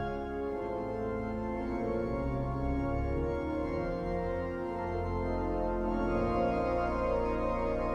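Pipe organ playing full sustained chords over a held deep bass.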